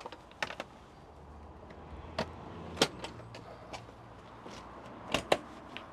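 Handling of an electric car's charging lead and plug: a series of sharp plastic clicks and knocks, with two close together a little after five seconds in.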